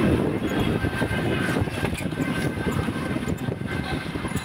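Wind buffeting the phone's microphone: a rushing low rumble that eases slightly toward the end.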